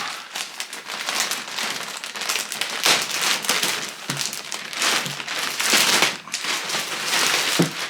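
Thick plastic bag crinkling and rustling as it is pulled off and handled, with many small crackles.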